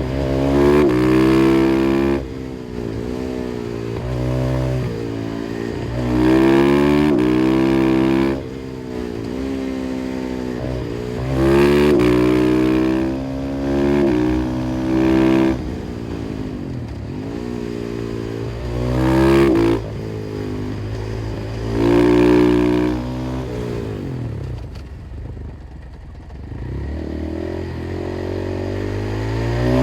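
KTM 500 EXC-F's single-cylinder four-stroke engine through an FMF exhaust, accelerating hard in repeated bursts. Its pitch climbs and drops back with each gear change, then it goes quieter on the overrun between bursts.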